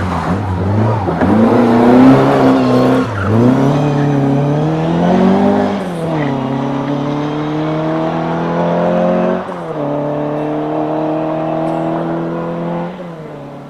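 Rally car engine accelerating hard through the gears, its pitch climbing and dropping sharply at each of four upshifts, then fading as the car pulls away.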